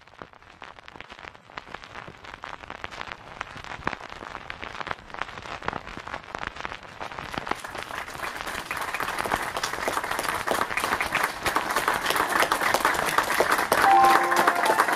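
Audience applause, dense clapping that fades in from near silence and grows steadily louder. Near the end a few sustained keyboard notes come in over it.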